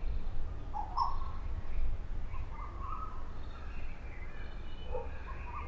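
Open-air riverbank ambience: a steady low rumble of wind on the microphone, with birds calling now and then.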